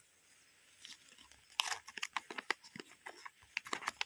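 Paper instruction leaflet being handled and unfolded: irregular crinkling and rustling crackles that start about a second in.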